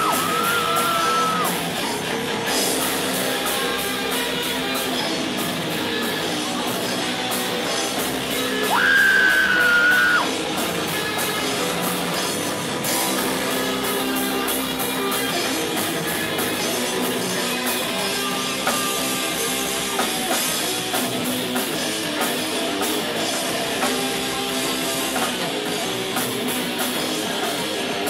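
Live rock band playing: electric guitar, bass guitar and drum kit. A long high held note dips slightly in pitch at the start and again about nine seconds in, the loudest moments.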